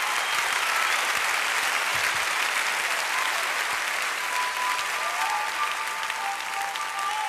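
Large audience applauding. About four seconds in, a few sustained high notes begin over the applause.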